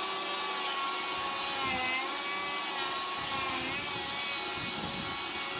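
Chainsaw running at high revs, its pitch sagging briefly about two seconds in and again near four seconds as it is pushed into the wood. The chain is dull, so the saw is barely cutting.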